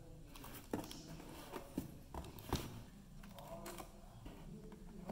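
Cardboard parcel being handled and turned over by hand, with a few light knocks and taps against the box.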